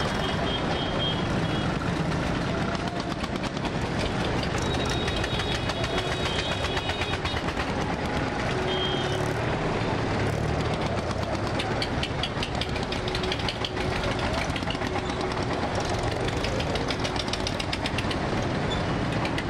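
Several diesel farm tractor engines running together in a slow column, with a fast, even clatter of firing strokes. Short high-pitched tones sound three times in the first half.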